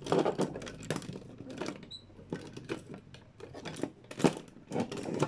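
Plastic parts of a transforming toy robot being handled and moved: irregular clicks, taps and rustles, with one louder knock about four seconds in.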